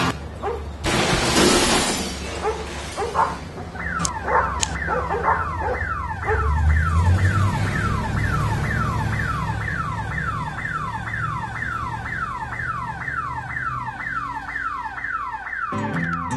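Electronic alarm sounding a fast, steady run of falling whoops, about two and a half a second, after a short noisy burst and two sharp clicks.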